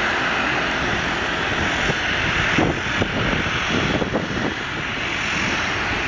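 Boeing 737-800's twin CFM56-7B turbofan engines as the jet climbs away after takeoff: a steady jet roar, turning uneven with low rumbles about midway.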